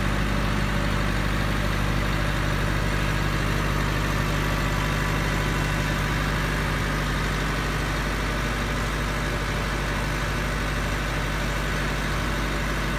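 The diesel engine of a 10 kW silent generator set runs at a steady, even speed while carrying about 5.6 kW of load from a load bank.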